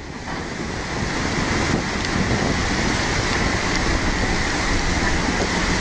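Steady rushing roar of a fast-flowing flooded river, mixed with wind buffeting the microphone.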